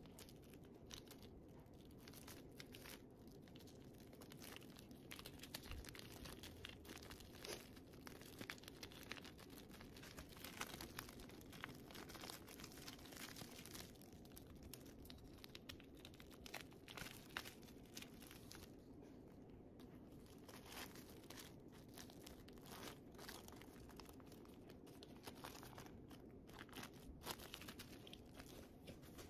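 Faint crinkling and crackling of a thin clear plastic bobo balloon being handled and crumpled, in many small irregular crackles.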